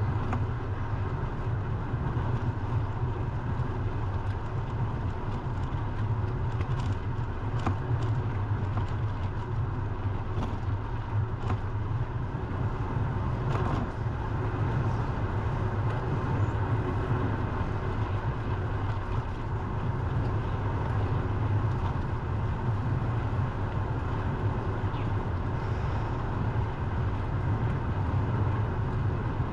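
Steady low rumble of wind and road noise on a GoPro Hero10 Black's microphone during a bike ride, with a few faint ticks in the first half.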